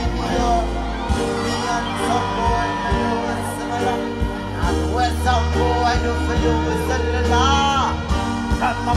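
Live dancehall music played loud over the PA: a man sings into a handheld microphone over a backing track with a steady, heavy bass.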